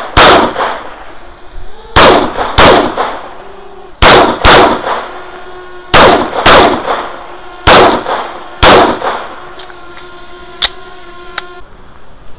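CZ P-09 9 mm pistol fired nine times, singly and in quick pairs about half a second apart. Each shot is very loud and sharp. Then come a faint ringing tone and one sharp click.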